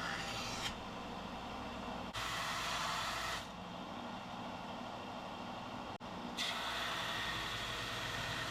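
Belt grinder running with a steady motor hum, while a Damascus steel knife blade is pressed to its 60-grit belt to grind the bevels. The grinding hiss comes and goes three times as the blade is worked in passes.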